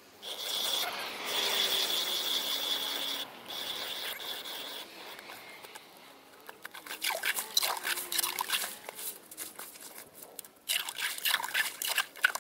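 Hand ice auger being cranked down through thick ice: the blades scrape and crunch with uneven, scratchy strokes.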